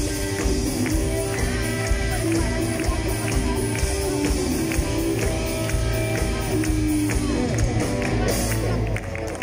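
Live rock band playing an instrumental passage: electric guitar, bass guitar, drums and keyboards with steady drum hits and sustained chords, the music stopping about nine seconds in as the song ends.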